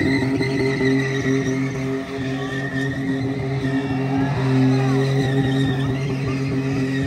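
Vehicle engine held at steady high revs, with skidding tire noise underneath.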